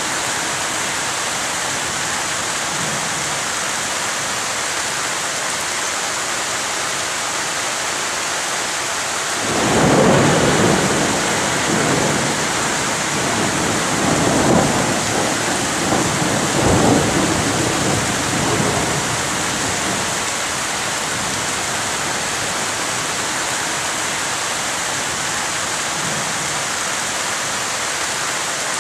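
Heavy rain pouring steadily in a thunderstorm. About a third of the way in, a long roll of thunder rumbles in, swells several times and dies away about ten seconds later.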